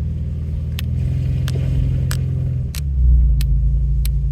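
Off-road 4x4's engine rumbling at low speed over a rough dirt road, with about six sharp knocks or rattles along the way; the engine picks up about three seconds in.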